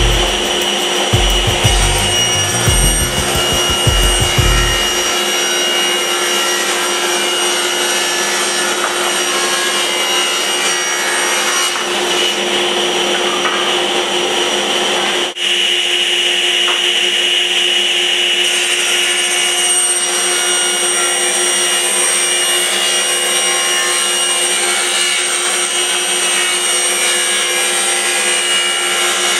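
Power woodworking machine running steadily while cutting wood, with a steady hum under the cutting noise.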